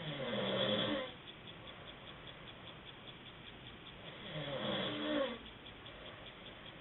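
A man snoring in his sleep: two snores about four seconds apart, each lasting about a second.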